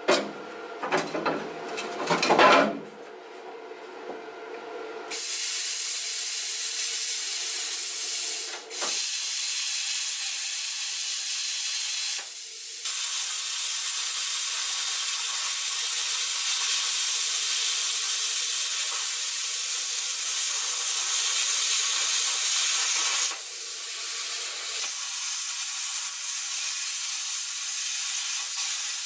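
A few knocks and clatter, then about five seconds in a handheld plasma cutter starts a loud, steady hiss as it cuts through rusted sheet-steel floor. The hiss drops out briefly about nine seconds in, then carries on.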